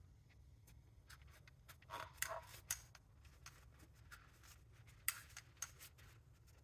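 Faint handling noises from working on a motorcycle brake master cylinder: a few light clicks and short rubs, in two small clusters about two seconds and five seconds in, over a low steady room hum.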